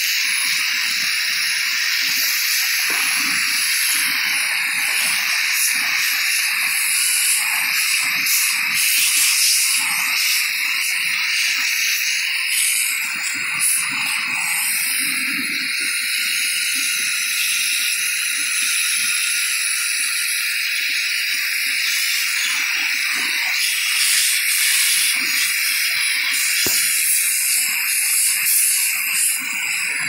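Shark vacuum running with its crevice tool, a steady hiss of suction airflow, sucking glitter and dust out of a clear Bissell dust bin, with irregular small rattles and clicks as particles go up the tool.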